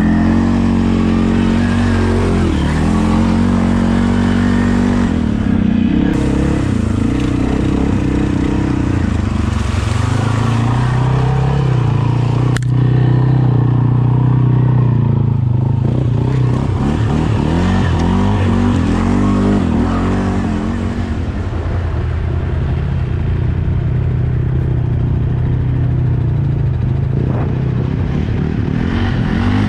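ATV engine running under changing throttle, its pitch rising and falling as the quad speeds up and slows, with a single sharp click about twelve seconds in.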